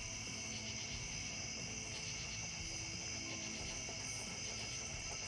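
Steady night chorus of crickets and other insects, a continuous high trilling that does not let up.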